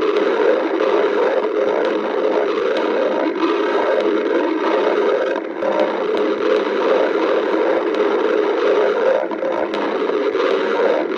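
Human stomach growling: a continuous, uneven rumble that briefly dips in loudness about five and a half seconds in, the sign of an empty, hungry stomach.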